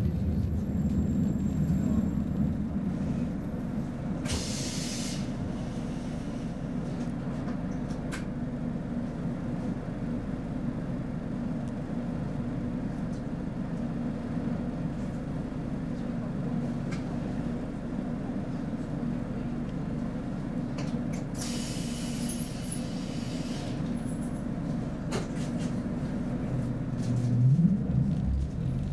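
Cabin sound of a Roslagsbanan X10p electric train standing at a platform: a steady low hum and rumble from the onboard equipment, broken by two short hisses of released air, one about four seconds in and a longer one past the middle. Near the end a rising whine sets in as the train starts to pull away.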